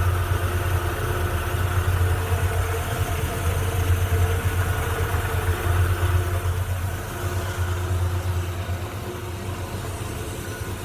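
Grob 4V-36 metal-cutting bandsaw running under power with a steady low hum and a few faint steady tones above it, easing slightly in level in the second half.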